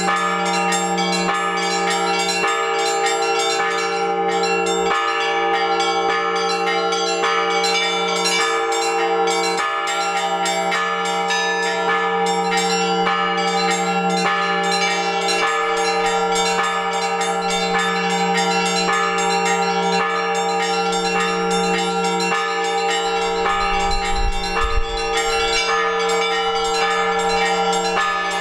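Orthodox church bells ringing for the liturgy: a fast run of strokes on smaller bells over the long, steady hum of the larger bells, ringing without a break.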